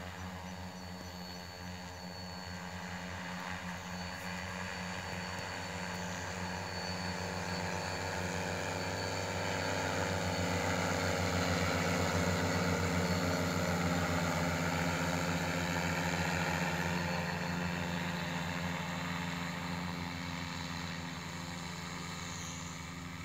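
Multirotor crop-spraying drone's rotors humming steadily as it flies over the field. It grows louder as it passes close about halfway through, then fades as it moves away.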